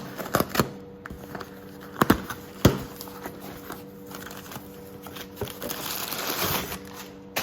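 Hands handling parts and packaging: a few sharp clicks and knocks in the first three seconds, then rustling and crinkling near the end, as if a new clutch lever is being unwrapped.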